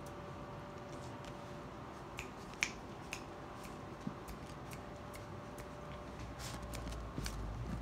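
Puppies scuffling and playing on a blanket: scattered light clicks and taps, the sharpest about two and a half seconds in, over a faint steady hum, with a low rumble of movement building near the end.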